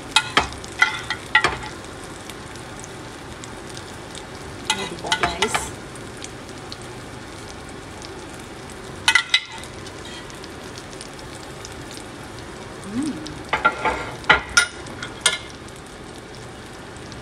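Oil sizzling steadily in a frying pan under egg-coated grilled eggplants. Four short clusters of metal spoon clicks and scrapes, near the start, about 5 s in, about 9 s in and around 14 s in, as a ground-beef-and-egg mixture is spooned onto them.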